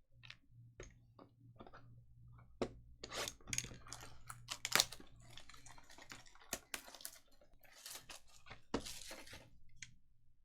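Trading cards and their wrappers being handled and sorted on a table: a string of irregular clicks, taps and crinkly rustles, busiest in the middle, over a faint steady low hum.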